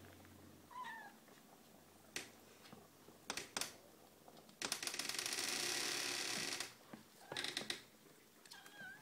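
Five-week-old kittens meowing softly, with a short falling meow about a second in and another near the end, amid light scuffling and clicks as they crowd round their mother to feed. Midway comes a loud two-second rush of hissing noise, the loudest sound.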